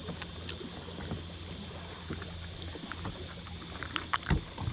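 Fishing boat on the water: a steady low motor hum with scattered light clicks and knocks, and a few louder knocks near the end.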